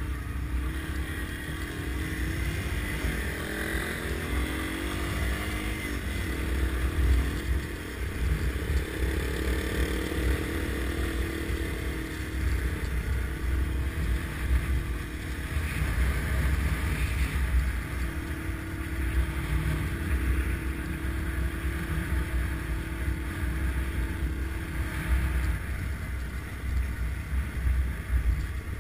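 Small air-cooled single-cylinder dual-sport motorcycle engine running along a dirt road, its pitch rising and falling with the throttle, under heavy wind rumble on the bike-mounted camera's microphone.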